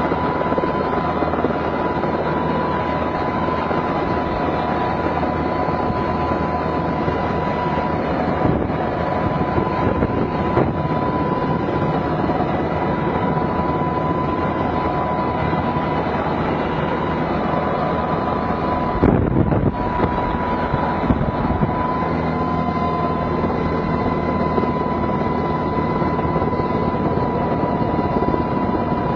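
Helicopter running steadily: a continuous engine-and-rotor noise with a constant high whine over it. About two-thirds of the way through there is a brief, louder low rumble.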